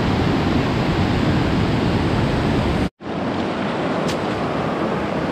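Steady rushing of a rocky mountain river's rapids, white water pouring over boulders. It cuts out for an instant about three seconds in, then runs on a little quieter and thinner in the low end.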